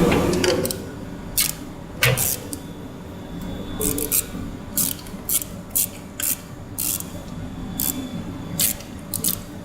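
Irregular clicks, taps and scrapes of hands working the motorcycle's fuel tank loose on its mounting pivot shaft, about a dozen short sharp sounds spread unevenly.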